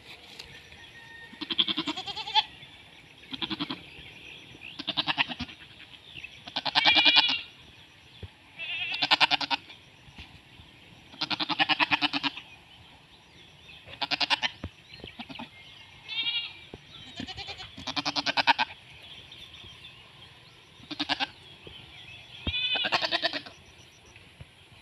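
Goats bleating over and over, about a dozen quavering calls, one every second or two.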